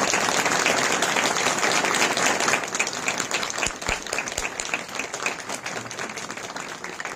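Audience applauding, loudest for the first two seconds or so and then fading gradually.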